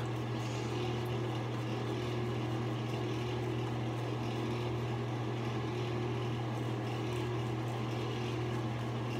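A steady low hum that does not change, with a faint hiss over it.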